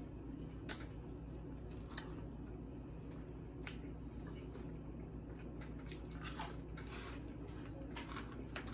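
Close-up eating sounds: chewing, with scattered short, wet mouth clicks and smacks, over a faint steady low hum.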